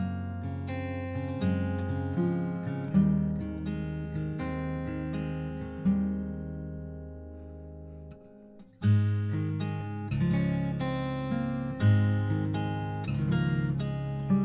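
Background music: acoustic guitar strumming chords, fading briefly about two-thirds of the way in before a fresh strum picks it up again.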